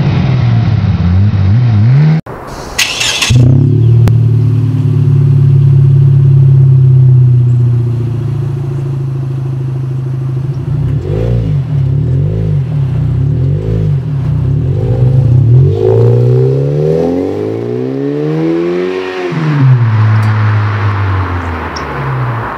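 Lexus IS with a muffler-delete axle-back exhaust: the engine starts about three seconds in and idles steadily through the open exhaust. From about 11 s it is blipped in several short revs, then the car pulls away with a long rise and fall in pitch, and its exhaust note fades.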